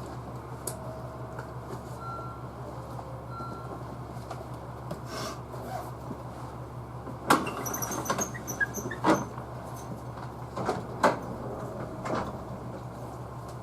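Steady low hum inside a stationary JR Central 311 series electric train car, idling at the platform with its doors open. Several sharp clicks and knocks come in the second half.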